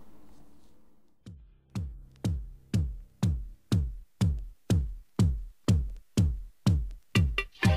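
Electronic dance music soundtrack: a drum-machine kick drum beats steadily about twice a second, starting about a second in, and more instruments join near the end.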